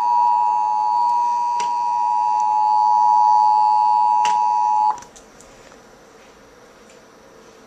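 Emergency Alert System attention signal through a TV speaker: the steady two-tone alarm of 853 and 960 Hz, which cuts off sharply about five seconds in, leaving faint hiss.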